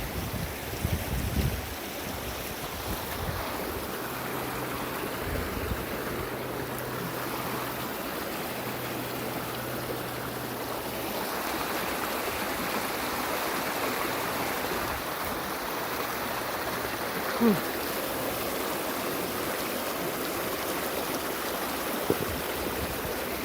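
Flooded creek in spate, its fast water rushing steadily. There are a few low thumps in the first couple of seconds, and a brief sharp squeak about seventeen seconds in.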